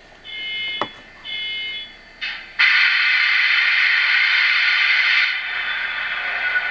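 Two short electronic beeps, then about two and a half seconds in the sound decoder of an Athearn Genesis HO-scale SD70ACe model locomotive starts up through its small onboard speaker: a loud steady hissing noise that eases slightly near the end, the start of the model's diesel start-up sequence.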